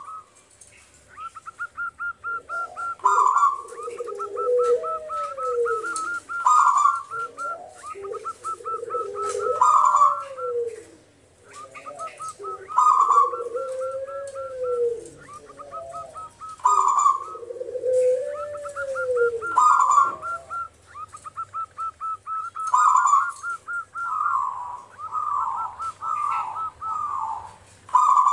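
Zebra dove cooing its song over and over, a phrase every three seconds or so: a quick run of short even notes ending in a louder note, with lower arching coos in between.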